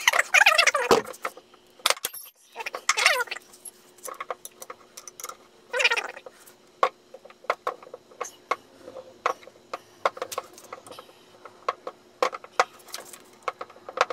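Steel wrenches clinking and clicking against each other and the sprocket carrier bolts as the bolts are angle-tightened by hand. A few brief vocal sounds come in between, the loudest right at the start.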